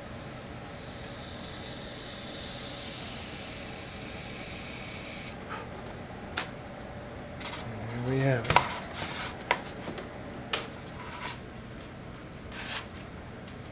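Insulation-foam fuselage being pushed across a table through a hot-wire foam cutter, a steady hissing rub for about five seconds that stops abruptly as the cut finishes. Then scattered knocks and clicks as the cut foam pieces are handled and set down.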